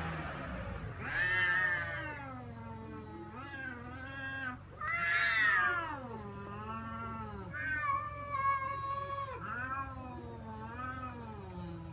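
Domestic cats caterwauling at each other in a fight standoff: long, wavering yowls that rise and fall in pitch, sometimes overlapping, loudest about a second in and again about five seconds in.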